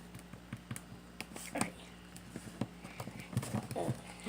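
Sticky melted-gummy-bear slime being handled and stirred, giving irregular soft sticky smacks and small clicks.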